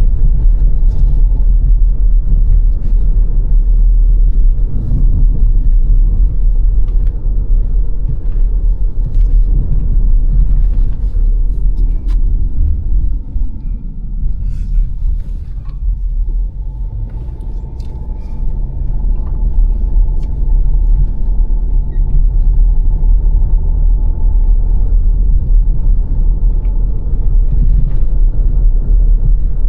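Car driving along a road: steady low rumble of tyres and engine with occasional small knocks, easing off a little about halfway through. A faint steady whine runs under the rumble from a little past halfway on.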